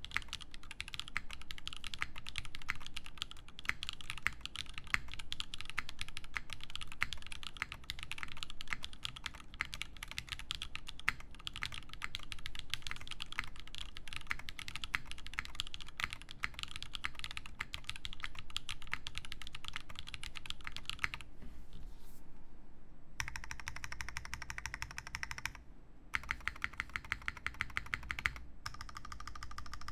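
Typing on an Iron165 mechanical keyboard with lubed Zaku switches, a carbon fibre plate and GMK Beta keycaps: fast, continuous keystrokes for about twenty seconds. After a short pause, a different sound follows in short stretches, one of them a rapid run of evenly spaced clicks.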